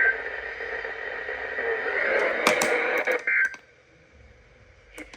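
Radio receiver hiss carrying short bursts of two-tone data warble, one at the start and one about three seconds in. These are EAS data bursts that mark the end of an alert. A few sharp clicks come just before the second burst, and then the static cuts off, leaving only a faint click or two.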